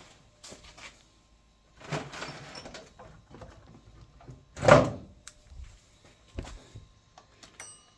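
Hands and tools handling parts in an engine bay: light knocks and clicks, a rustling scrape about two seconds in, and one loud thump near five seconds.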